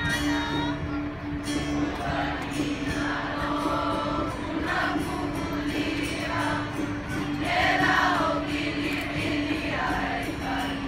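A large group of young voices singing together, with a steady hum underneath.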